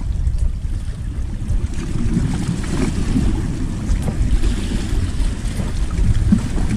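Wind buffeting the microphone as a steady low rumble, with small waves washing against the boulders of a rock breakwater.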